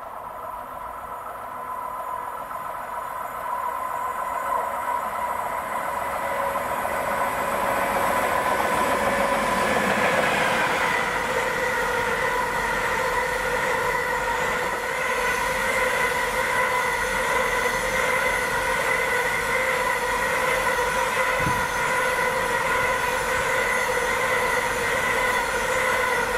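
Electric-hauled freight train of high-sided box wagons approaching and rolling past, growing louder for about ten seconds and then holding steady. A steady high squeal from the wheels rides over the rumble as the wagons go by.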